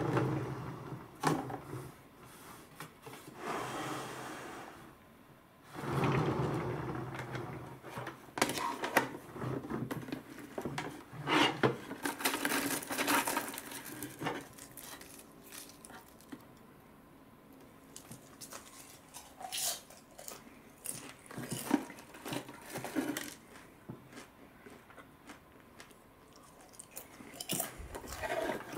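Hard plastic box-shaped popcorn bucket being handled: its hinged lid flaps and side door opened and moved, giving irregular plastic clicks and knocks with stretches of scraping and rubbing.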